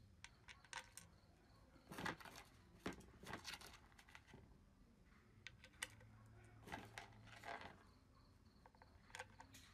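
Faint, scattered clicks and short scrapes of small metal bolts being handled and set into the bolt holes of a painted spring balance housing, with gloves rustling against it.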